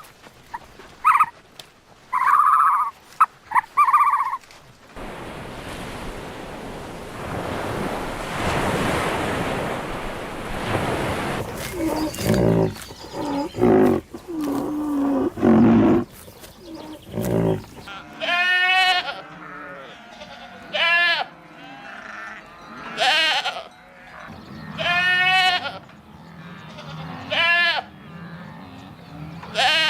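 Goat bleating: a run of loud, wavering bleats about every two seconds through the second half. Before them come a few short calls and a stretch of steady rushing noise.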